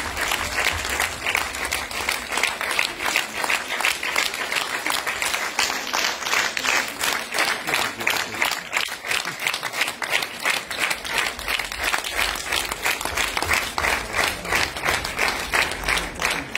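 Theatre audience applauding at a curtain call, a dense, steady clapping that keeps going without a break.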